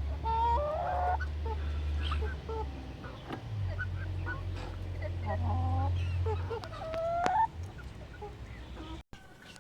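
Chickens in a coop calling: several drawn-out, wavering hen calls, one near the start and one about two-thirds through, with shorter clucks between, over a low steady hum that stops near the end.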